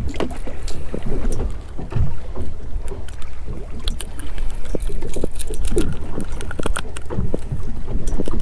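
Wind rumbling steadily on the microphone, with scattered small clicks and rattles as the treble hooks of a jerk bait are worked free of a speckled trout's mouth with pliers.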